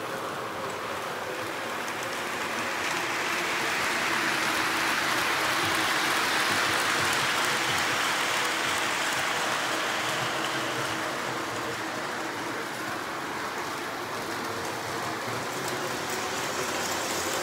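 Model trains running on a layout: a steady rumbling hiss of wheels and motors on the rails. It swells louder for several seconds as a train passes close by, then eases off.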